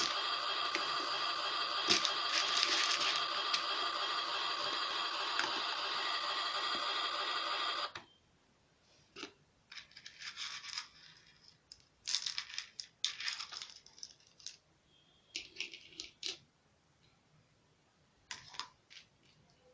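Toy kitchen set's built-in electronic sound effect playing steadily, then cutting off suddenly about eight seconds in. Light clicking and rattling of small plastic toy pieces being handled follows.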